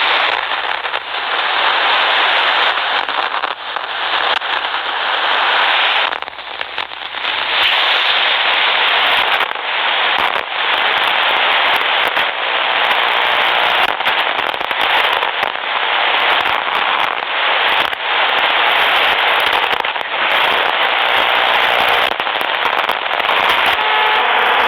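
Shortwave AM radio receiver putting out static with no station audible: a dense hiss broken by frequent crackles and brief dropouts.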